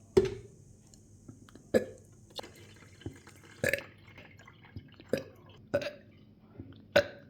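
A person letting out about half a dozen short, clipped burps, spaced roughly a second apart.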